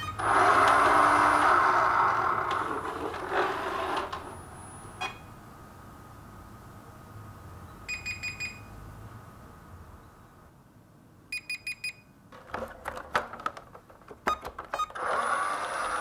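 ILIFE V7s Plus robot vacuum starting up, its fan and motors running with a high whine for about four seconds, then stopping with a click. It then gives four short electronic beeps, twice, a few seconds apart: its error 4 code, meaning the main brush is not turning. Knocks and clicks of the unit being handled follow near the end.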